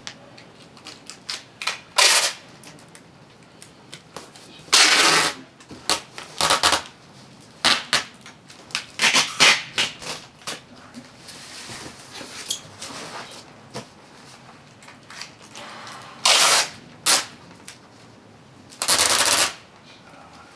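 Packing tape being pulled off the roll in loud, ripping strips of about half a second each, several times at irregular intervals, with quieter cardboard handling between, as a shipping box is taped shut.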